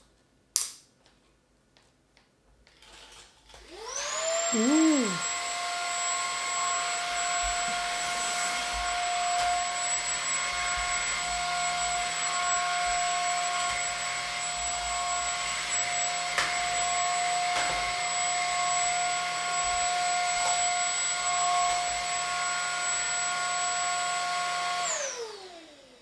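Maircle S3-Mate cordless stick vacuum switched on about four seconds in: the motor spins up to a steady high whine and runs evenly, then winds down near the end as it is switched off. Two sharp clicks come before it starts.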